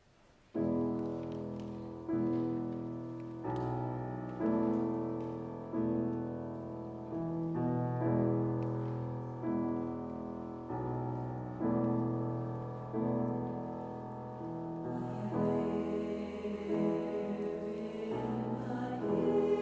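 Piano playing a slow introduction of chords, each struck and left to fade, about one every second or so. A women's choir comes in singing about fifteen seconds in.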